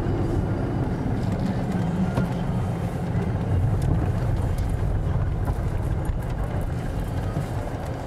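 Car engine and tyre noise heard from inside the cabin while driving: a steady low rumble, with faint scattered ticks.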